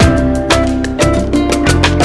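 Background music with a Latin feel: a steady drum beat with bass and plucked guitar.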